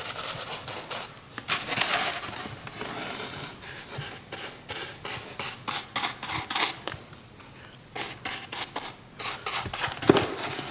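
A cheap paintbrush scrubbing green paint onto a craft pumpkin's stem in quick, irregular strokes, a dry scratching rasp. There is a sharper knock near the end as the cutout is handled.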